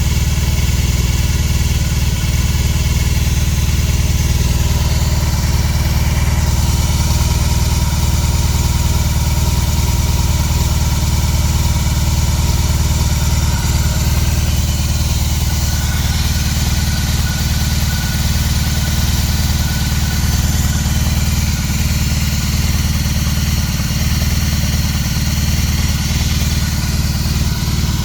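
BMW R18 Classic's large boxer twin engine idling steadily after a cold start.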